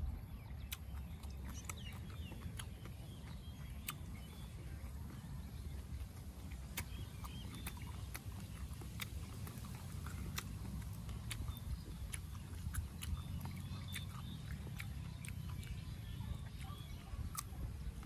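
Close-miked chewing of food, with irregular wet clicks and small crunches from the mouth over a steady low rumble.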